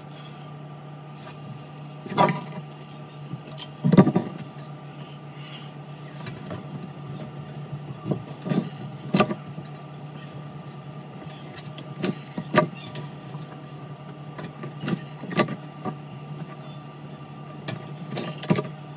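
Scattered sharp knocks and metallic clinks, often in pairs, from hands and a tool working on the metal drain fittings under a kitchen sink, over a steady low hum.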